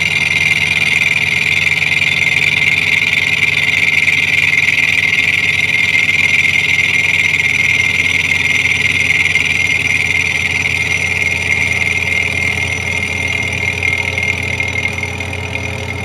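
Vertical milling machine's end mill cutting the top face of a cast aluminium intake manifold: a steady, high cutting note over the machine's low hum, easing a little near the end.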